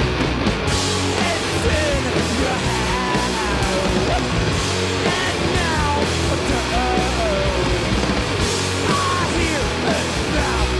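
Rock band playing live: electric guitars, bass and drum kit, with a high melodic line that bends and slides in pitch over the top.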